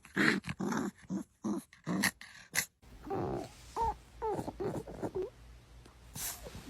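A dog growling and grumbling in short sharp bursts, then a series of rising-and-falling whines after about three seconds.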